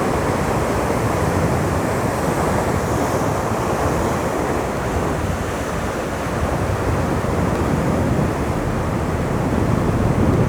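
Heavy surf: big rolling waves breaking and washing around the pier in a steady, loud rush, with wind buffeting the microphone.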